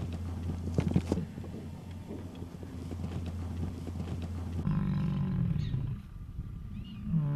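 American bison bulls fighting, with a few sharp knocks about a second in. From about two-thirds of the way through, a bull bellows twice in long, deep roars.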